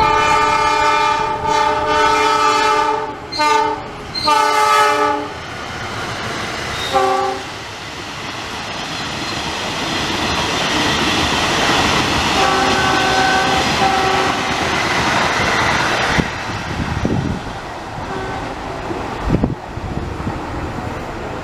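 Locomotive air horn sounding a chord: one long blast of about three seconds, then two shorter blasts and a brief toot, the railway's Semboyan 35 horn signal. Then the loud rising rumble of the train passing, with another horn chord sounding for about two seconds in the middle of it.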